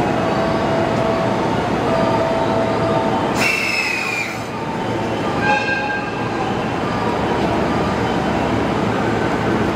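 EF64 1000-series electric locomotive and its train pulling out and rolling along the track at low speed, a steady rumble. A high-pitched squeal a little over three seconds in lasts about a second, falling slightly in pitch, and a shorter, weaker one comes around the middle.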